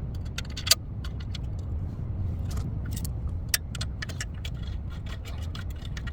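Scattered light metallic clicks and clinks of hand tools and suspension parts being handled during a ball joint installation, over a steady low rumble.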